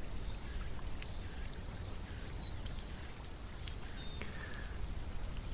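Faint steady background ambience with a low rumble and a few soft scattered clicks and brief faint high chirps.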